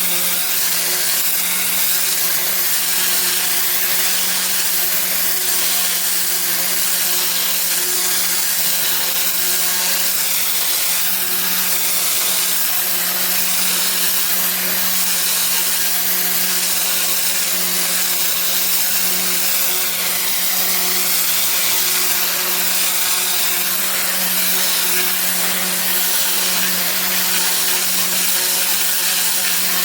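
Pressure washer with a turbo nozzle spraying block paving: a steady spray hiss over the machine's constant hum.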